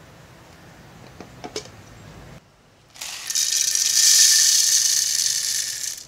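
Whole coffee beans poured from a container into a coffee grinder's plastic hopper: a loud, steady rattling cascade lasting about three seconds, preceded by a few light clicks of handling.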